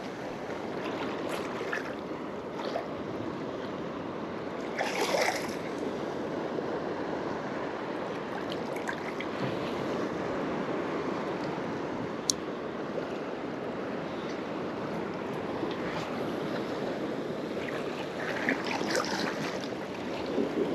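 Shallow ocean surf washing and lapping close around the microphone, with wind on the microphone; louder sloshes about five seconds in and again near the end.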